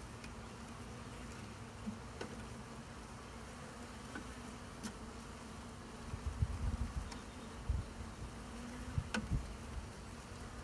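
A package of honey bees buzzing in a steady hum. A few low thumps come through about six to nine seconds in.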